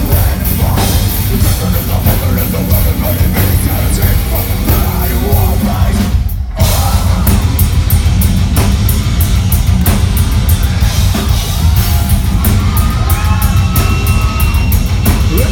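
Heavy metal band playing live and loud, with yelled vocals over distorted guitars and drum kit; fast cymbal hits drive the second half.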